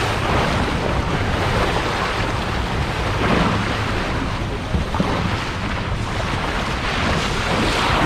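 Steady wind rushing over the microphone, with sea waves washing around a boat in rough water.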